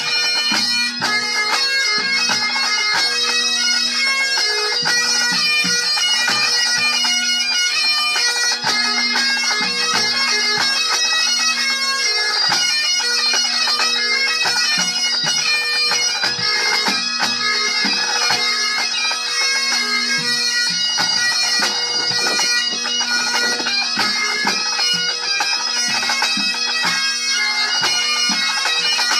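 A full pipe band playing: Great Highland bagpipes with their steady drones under the chanter melody, and snare and bass drums keeping the beat.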